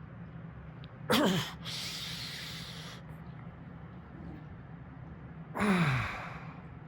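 A man gives two short, sharp nonverbal vocal outbursts, about a second in and near the end. Each is a burst of breath with a voice falling in pitch, and the first trails into a long breathy exhale.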